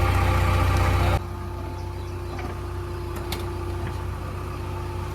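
JCB 3DX backhoe loader's diesel engine running steadily with a deep drone. About a second in, the level drops suddenly, and the engine continues at a quieter steady hum.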